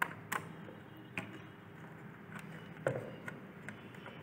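Quiet, irregular clicks and taps of hands and a screwdriver working a wire into the screw terminal of a plastic wall switch on a wiring board, about eight in all, the first the sharpest.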